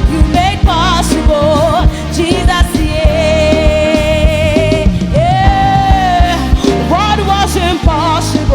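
Gospel praise music: a solo voice sings wavering runs and two long held notes in the middle, over a band with a steady beat.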